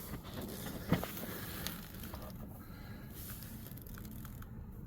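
Faint handling noise, with one sharp knock about a second in and a few small clicks; no engine is running.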